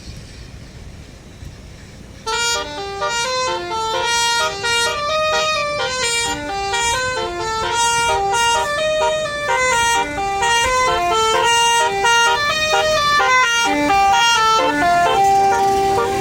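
A tourist bus's telolet basuri musical horn playing a quick melody of clear stepped notes, starting about two seconds in, over a low rumble.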